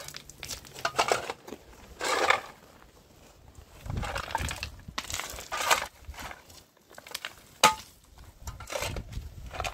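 Long-handled shovel digging into a stony, gravelly earth bank: about six scraping, crunching strokes of the blade through gravel and stones, a second or so apart, with one sharp clink of metal on stone about three-quarters of the way through.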